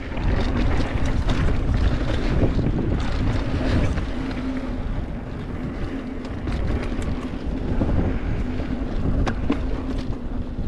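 Wind rushing over the microphone of a moving mountain bike as its tyres roll on a dirt trail, with scattered sharp clicks and rattles from the bike over rough ground.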